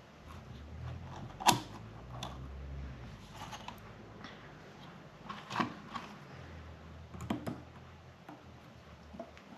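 Small metal clicks and taps as a piston ring is worked into its groove on a Wiseco two-stroke piston by hand and with needle-nose pliers. The sharpest click comes about one and a half seconds in, with a few lighter ones later, over a faint low hum.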